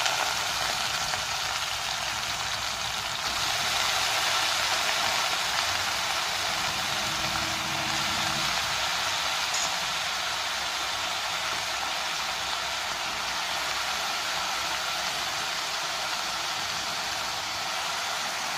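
Cubed brinjal sizzling in hot oil in a kadai as the pieces go in, a steady hiss that grows a little louder about three and a half seconds in.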